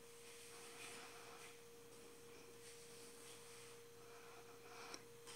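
Near silence: a faint steady tone runs throughout, under the faint soft rasp of fabric scissors cutting through cotton tricoline in short stretches.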